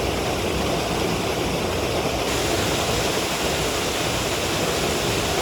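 Steady rush of flowing creek water, a full, even roar with no breaks. About two seconds in the hiss turns brighter.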